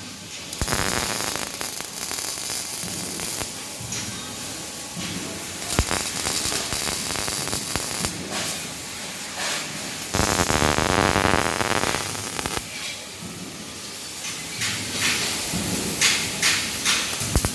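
Robotic CO2 gas-shielded arc welding: the arc crackles and hisses in four runs of two to three seconds each, with quieter stretches between them.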